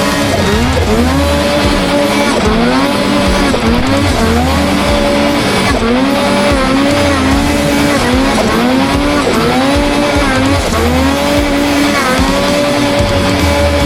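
Snowmobile engine revving hard and backing off over and over, its pitch rising and falling about once a second.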